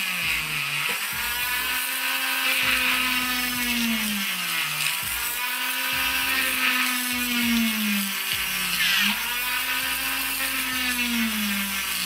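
Small handheld Oster rotary tool running with a 1/16-inch drill bit, boring holes into clear plastic tubing. Its high motor whine rises and falls in pitch in three slow swells.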